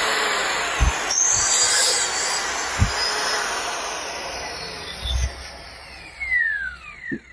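Electric motor of a VERX handheld marble cutter running at full speed on its test run after a new armature and field coil were fitted, then switched off and winding down, its whine falling in pitch toward the end. A few light knocks come from the tool being handled.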